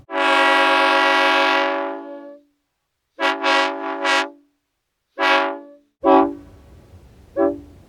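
Multi-tone train air horn sounding a chord: one long blast of about two seconds, then a shorter wavering blast and a short one. About six seconds in, another horn recording starts with short toots over a low rumble.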